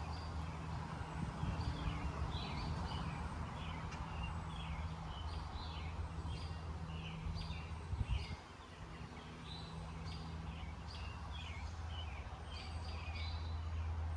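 Small birds chirping and calling repeatedly over a steady low hum, with a single knock about eight seconds in.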